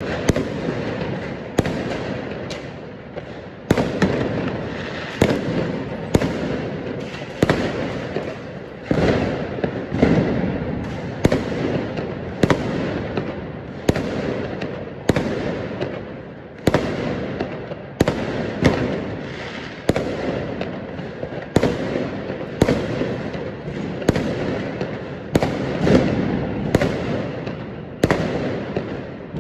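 Fireworks bursting in a continuous show: a sharp bang about every one to one and a half seconds, each followed by a fading rumble and crackle that overlaps the next.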